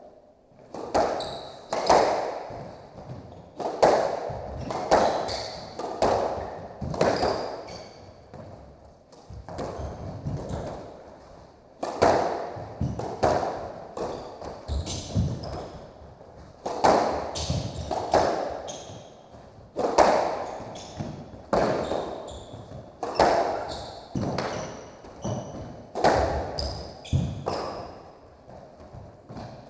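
Squash rally: the ball smacks off rackets and the court walls about once a second, each hit ringing in the enclosed court, until the rally stops near the end.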